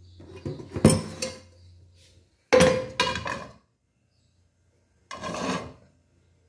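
Aluminium cooking pot clanking and rattling as it is handled and set on a gas stove's grate. There is a cluster of knocks early, two sharp ringing clanks about two and a half and three seconds in, and a shorter rattle near the end.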